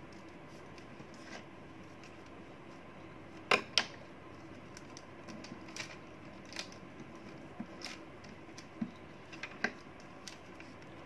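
Hands handling origami paper and a glue stick on a sheet of paper: faint rustles and scattered light taps and clicks. The loudest are two sharp clicks close together about three and a half seconds in.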